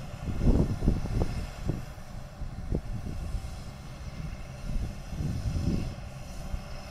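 Diesel engine of a JCB tracked excavator running as it digs, heard from a distance as a low drone that swells and fades unevenly.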